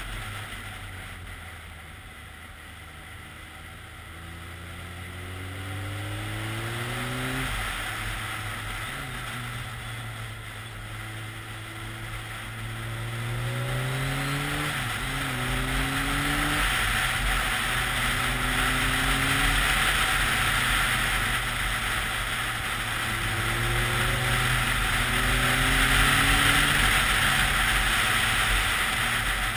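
BMW K1300S inline-four engine pulling hard on a winding road, its pitch rising again and again as it accelerates, broken by several gear changes. Wind rush over the rider's helmet, louder toward the end.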